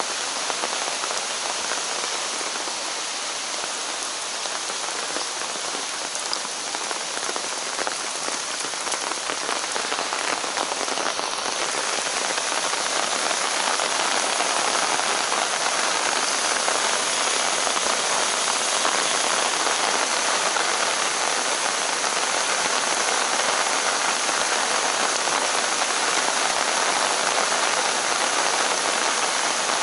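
Steady rain falling on the forest and wooden boardwalk, a dense hiss with many close drops ticking, growing a little louder about halfway through.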